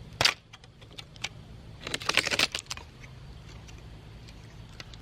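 Parts of an LCD monitor being handled during a teardown: a sharp click, scattered light ticks, and a brief rattling clatter about two seconds in.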